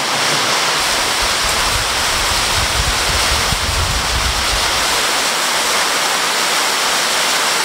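Torrential rain pouring down onto the ground and puddles, a loud steady hiss. A low rumble rises and fades through the middle.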